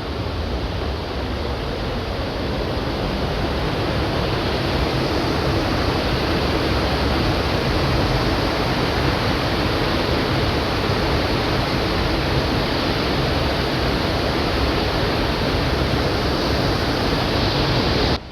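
Steady rushing of a waterfall, growing slowly louder, then cutting off abruptly near the end.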